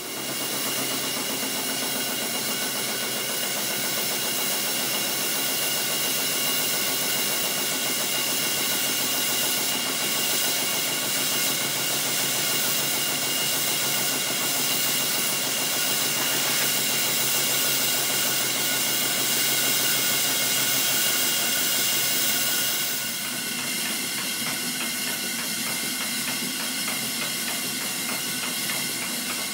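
Stuart Twin Victoria twin-cylinder mill engine running on live steam: a steady hiss of steam with a fast, even exhaust beat. The sound eases a little about 23 seconds in.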